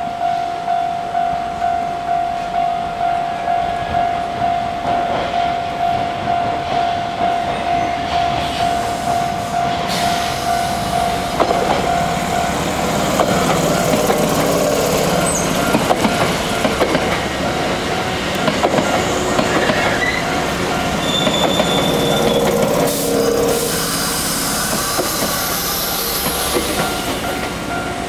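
A railway level-crossing warning bell rings with a steady repeating ding, about one and a half a second. About eleven seconds in, a Hankyu electric train starts rolling through, its wheels clicking over the rail joints, with a brief high wheel squeal partway through the pass.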